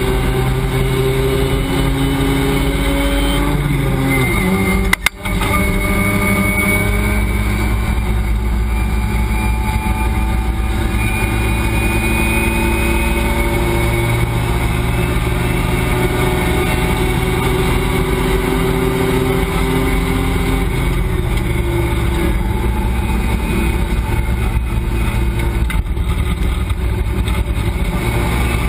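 Race car engine heard from inside the cockpit, running hard under load at speed, its pitch falling and rising as it goes through the rev range. About five seconds in there is a brief, sudden break in the sound.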